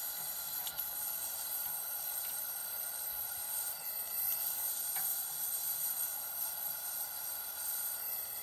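Gas torch flame hissing steadily while it heats a cracked stainless-steel exhaust bellows for brazing with filler rod.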